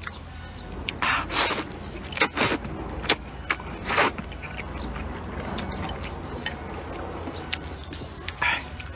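Close-up eating sounds: thick sweet potato noodles slurped into the mouth and chewed, in a few short wet slurps, the loudest about a second and a half in and at four seconds. A steady high insect trill runs underneath.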